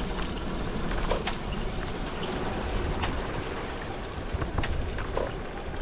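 Steady low rumble of wind and rolling noise while moving, with a few scattered light clicks.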